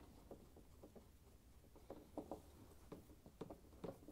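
Faint scattered clicks and light scrapes of a Phillips screwdriver working screws out of a dishwasher's plastic door panel, a few slightly louder taps about two seconds in and near the end.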